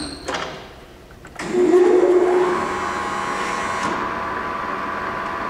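Acra-Turn gap bed engine lathe starting up about a second and a half in, with its 10 hp motor and spindle whine rising in pitch over about a second on the soft start, then running steadily at speed.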